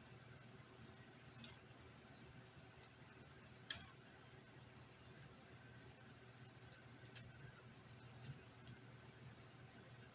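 Faint, scattered small clicks and taps, about eight in all with the sharpest near the middle, from handling the tablet's small parts during a battery replacement, over a steady low hum.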